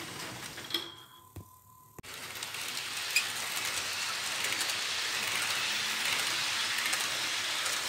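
HO scale model trains running on the layout's track, making a steady rushing hiss of metal wheels on rail. The hiss dips briefly about a second in, then builds again as a train speeds past, with one sharp click a little after three seconds.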